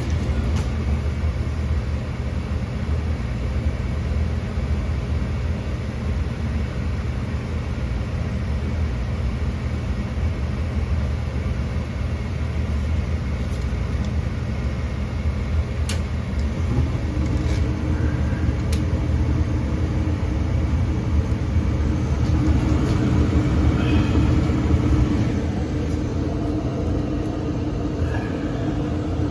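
Gas furnace running through a start-up attempt after its burner orifices were cleaned, a steady low hum. About halfway through, a second steady tone joins and the sound grows louder for several seconds before easing back.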